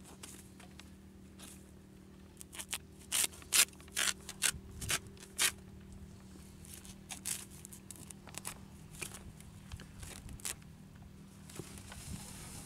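A sickle snipping and scraping through grass stems: a run of short, sharp cuts, thickest about two to five seconds in and sparser after, over a steady low hum.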